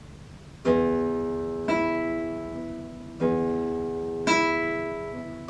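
Classical guitar played in two pairs of plucked chords, four strikes in all, each left to ring and fade.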